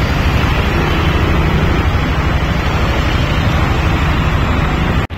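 Traffic driving through a flooded street: vehicle engines running and tyres sloshing through standing water in a steady, loud rush of noise. It cuts out for an instant near the end.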